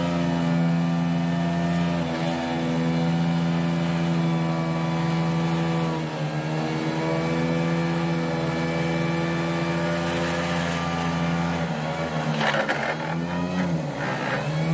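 Heavy piling machinery running, an excavator-mounted vibratory pile hammer and an auger drilling rig, giving a loud, steady, strongly pitched drone. The pitch sags and recovers a few times, most deeply near the end, with a burst of harsher noise about twelve seconds in.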